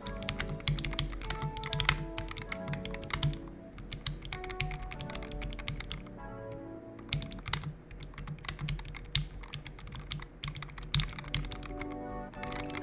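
Typing on a Yunzii L75 mechanical keyboard with Gateron Red linear switches and low-profile keycaps: quick runs of key clicks, with short pauses, over background music.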